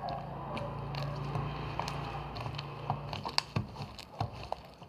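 Slime being squeezed and worked by hand, giving a run of small wet clicks and pops, thickest about three to four seconds in. A low steady hum runs under the first three seconds.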